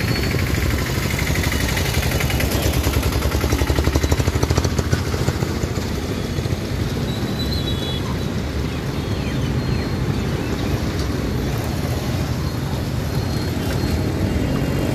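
Road traffic: motor scooters, auto-rickshaws and cars driving past with their engines running. One small engine's fast, even pulse swells loudest a few seconds in as it passes close.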